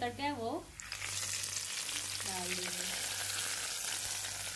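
Hot oil tadka with fried onions, dried red chillies and bay leaves hitting yogurt kadhi and sizzling: a steady, dense crackling hiss that starts about a second in. A short wavering voice-like sound comes just before it.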